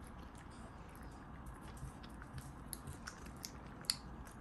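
Cats chewing treats: a string of small, irregular crunches and clicks, the sharpest one near the end.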